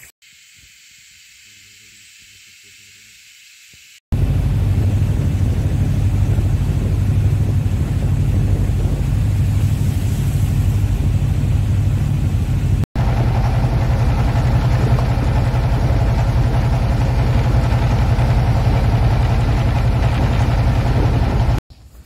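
Riverboat engine running steadily on board: a loud, even low drone with a hiss over it. It starts suddenly about four seconds in, after a few seconds of faint forest quiet, and breaks off for an instant at a cut about halfway through.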